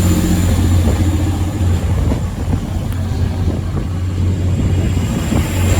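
Two coupled Class 185 diesel multiple units pulling out of the station, their underfloor diesel engines running with a steady low drone.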